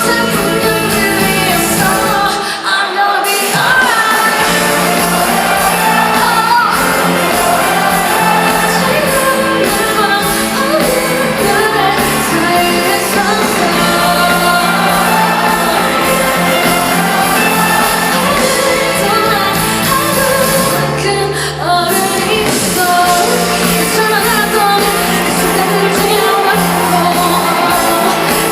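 Female singer performing a pop song live with her backing band, the vocal line carried over steady accompaniment. The low end drops out briefly about three seconds in and again about twenty-one seconds in.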